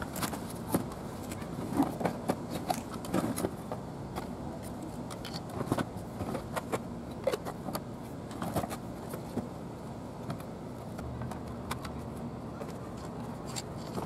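Cardboard box being opened and unpacked by hand: irregular rustles, scrapes and light knocks of cardboard flaps and plastic parts being handled, over a steady background hiss.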